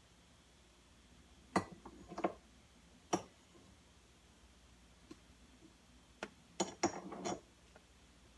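Scattered clinks and knocks of a utensil against a container while soap mixture is being scraped out: a few single taps in the first few seconds, then a quick cluster of them near the end.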